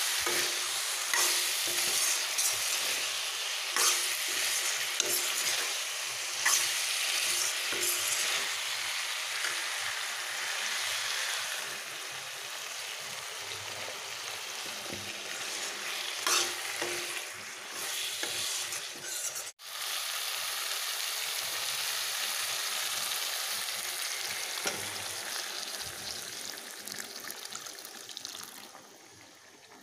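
Potato, pea and paneer curry sizzling in a metal kadai while a metal ladle stirs it, scraping and clinking against the pan. The sizzle cuts out for an instant about two-thirds of the way through, then carries on steadily with fewer strokes and fades near the end.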